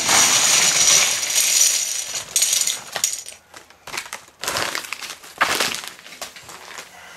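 Several hundred plastic LEGO 2x4 bricks pouring out of a padded paper envelope onto a heap of bricks, a dense clatter of plastic on plastic for about three seconds. A few shorter rattles and crinkles follow as the last bricks fall and the envelope is handled.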